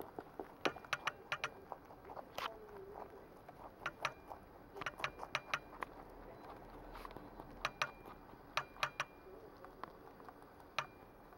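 A pet rabbit crunching pieces of cucumber from a dish: quick, irregular crunches in short runs, with pauses between bites.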